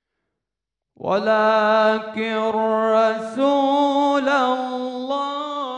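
A young man reciting the Quran solo in a slow, melodic tajweed style. After a second of silence he holds one long ornamented note, which steps up in pitch about halfway through and wavers with melismatic turns after that.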